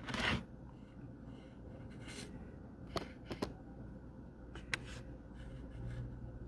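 Soft handling noises close to a phone microphone: a short rush of noise at the very start, then a few light clicks and faint rustles over a low steady room hum.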